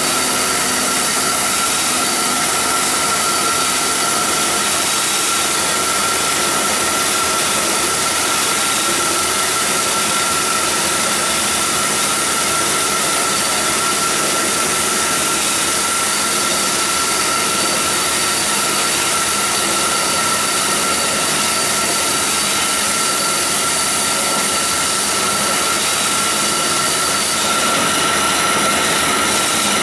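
Doall structural steel mitering bandsaw running steadily, a continuous machine noise with a steady high whine.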